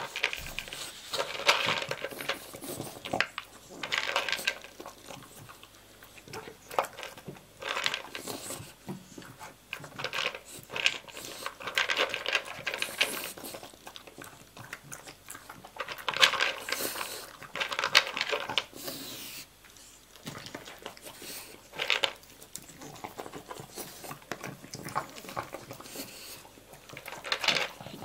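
A French bulldog eating dry kibble from a slow-feeder bowl with raised knobs: pellets rattle and clink against the bowl and its knobs as the dog noses among them and chews, in irregular bursts with some sharp clinks.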